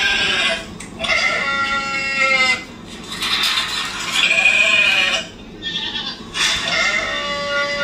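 Sheep bleating: a series of about four long, wavering bleats, roughly one every two seconds.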